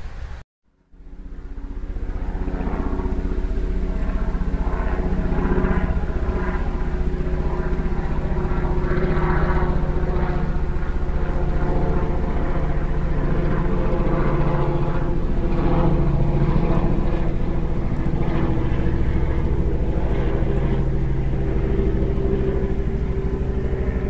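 Steady engine drone with a pitched, humming tone over a low rumble, starting after a brief drop-out just under a second in.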